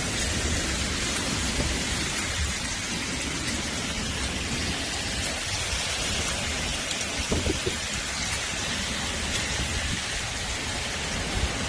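Heavy storm rain pouring: a steady rushing hiss with a low rumble underneath.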